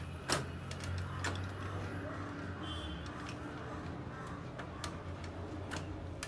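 A few sharp plastic clicks and knocks, the loudest about half a second in, as a power cord is pushed into the rear power inlet of a Konica Minolta bizhub copier and its plastic cover is handled, over a steady low hum.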